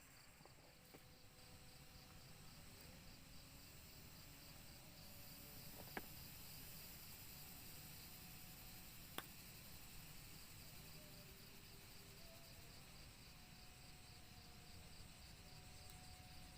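Faint insect chorus in the forest: a steady, pulsing high trill with a thinner hiss of other insects above it. Two sharp clicks come about six seconds in and again about three seconds later.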